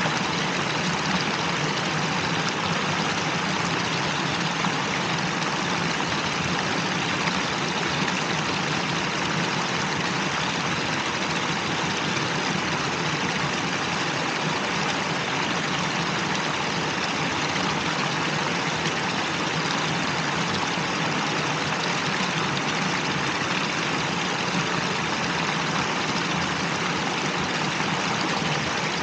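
Fountain water spilling down a curved stone wall into its basin: a steady, even splashing rush that does not change.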